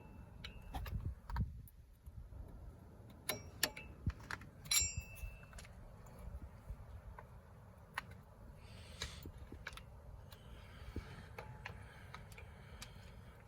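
Flathead screwdriver prying around a metal part on a truck's wheel hub: scattered light taps and scrapes, with a few sharp metallic clinks that ring briefly a few seconds in.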